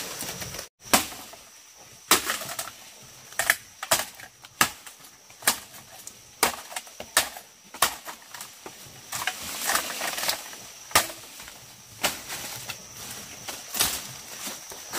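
A series of irregular sharp knocks or strikes, roughly one every half second to second and a half, over a faint steady hiss.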